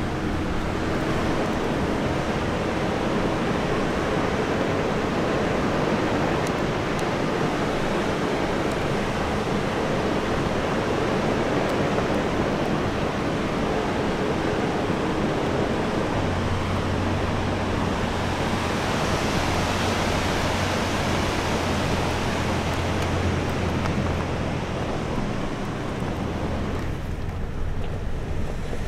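A Toyota 4x4 driving slowly over a rough gravel track, heard from inside the cabin: a steady rush of noise over the engine's low hum. The rush drops off near the end, leaving mostly the engine.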